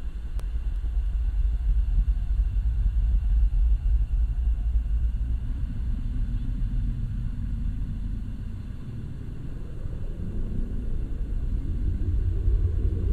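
Strong wind buffeting the microphone: a loud, gusting low rumble that swells and eases.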